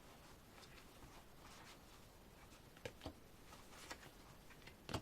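Near silence with a few faint taps and rustles of paper photocards and advert inserts being sorted by hand, the clearest just before the end.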